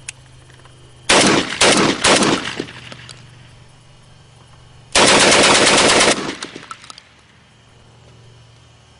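Semi-automatic Saiga-12 12-gauge shotgun firing: three quick shots about a second in, then a rapid string of shots about five seconds in lasting about a second. The gas system has been tuned with an adjustable auto plug so the gun cycles and ejects each shell.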